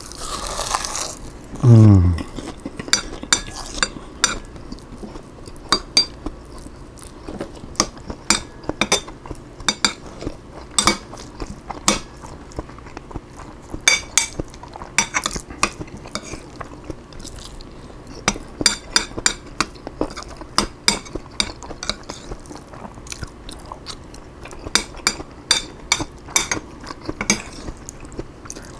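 Close-up eating sounds: many sharp crunches and chewing of stir-fried broccoli 'rice' with shredded cheese, with light clinks of cutlery and dishes. About two seconds in comes a short falling tone, the loudest sound.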